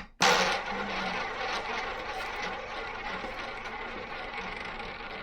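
Roulette ball launched around a double-zero roulette wheel, rolling in the track with a steady whir. It starts suddenly just after the start and slowly fades.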